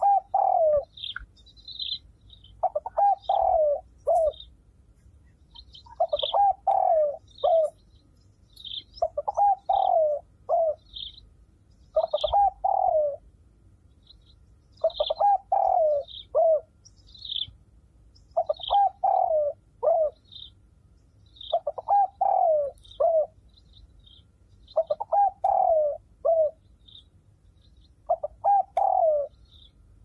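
A pigeon cooing in phrases of several falling notes, one phrase about every three seconds. Short, high chirps from another bird come in between the phrases.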